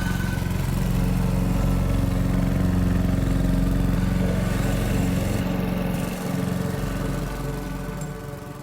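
Cartoon sound effect of a motor vehicle's engine running loudly and steadily close by, dropping off about six seconds in and carrying on quieter.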